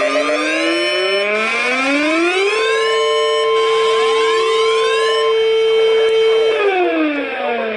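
A warning siren with several overlapping tones. It winds up in pitch over the first two and a half seconds, holds a steady pitch, then winds down near the end.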